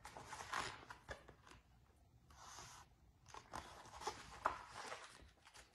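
Faint paper rustling and sliding as the pages of a large picture book are turned, with a few soft clicks and taps of the book being handled.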